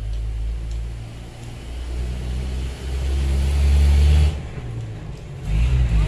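A motor vehicle's engine running close by: a low rumble that builds from about two seconds in, drops away suddenly a little after four seconds, and rises again near the end.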